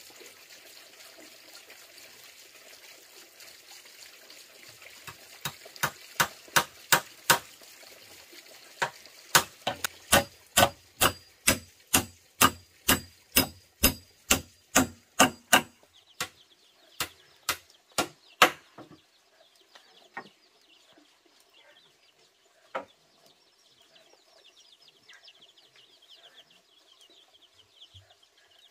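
A nail being hammered through a wooden plank into a post: a run of sharp, ringing strikes at about two a second, in three bursts with short pauses, the last few strikes lighter as the nail seats. One lone knock follows a few seconds later.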